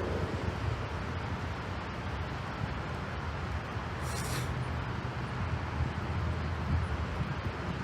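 Steady low rumble of jet aircraft engines, with a brief hiss about four seconds in.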